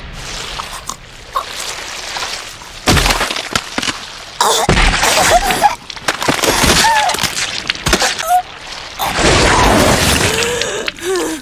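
Anime soundtrack sound effects: sudden hits and crashes, a couple of them loud, mixed with wordless vocal sounds that waver in pitch.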